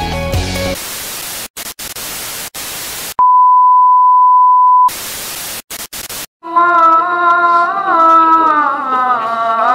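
Music cuts off just under a second in, then TV static hiss with brief dropouts, a steady high test-tone beep of about two seconds, and more static. From about six and a half seconds a single voice sings long, wavering notes.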